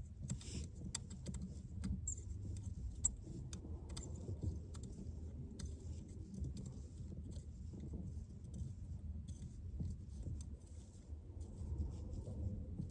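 Scattered light clicks and rattles of hands handling wiring and car interior parts, over a low steady rumble.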